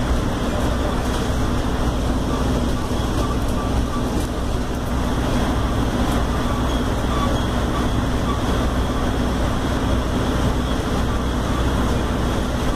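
Steady engine and road noise heard inside the cabin of a Mercedes-Benz OF-1721L city bus in service, an even drone with no sudden events.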